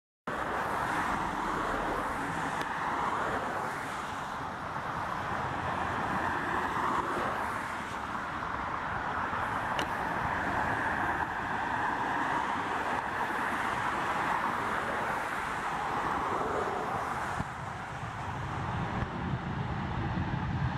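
Steady distant roar of a Southwest Boeing 737's jet engines as the airliner lands and rolls out along the runway, mixed with road traffic noise. The sound drops out for an instant at the very start, and a deeper rumble builds near the end.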